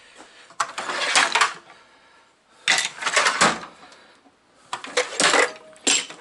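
Hand tools and small hard parts clattering and clinking as they are handled and put away, in four short bursts of rattling knocks.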